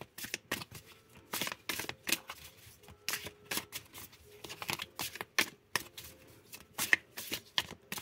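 A tarot deck being shuffled by hand: an irregular run of short, sharp card slaps and rustles.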